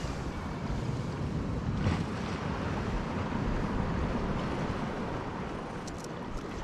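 Wind buffeting the microphone: a steady, rumbling rush of noise, with a few faint ticks near the end.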